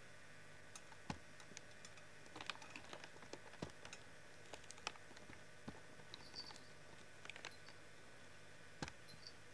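Scattered faint clicks and taps, irregular and a few per second at most, over a steady background hiss and hum.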